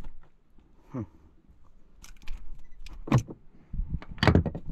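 Clicks and clinks of metal fishing tackle being handled with pliers at a caught fish, with a short falling squeak about a second in and heavier knocks about three seconds in and near the end, over a low rumble.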